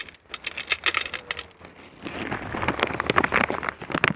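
Dry cat biscuits clicking and crackling: a rapid scatter of small clicks as more kibble is shaken from the bag onto a plate, getting denser and more hissy about halfway through.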